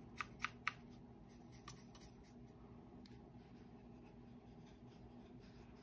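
Three quick light taps of a watercolour brush against a plastic paint palette, then faint strokes of the brush on cardstock paper.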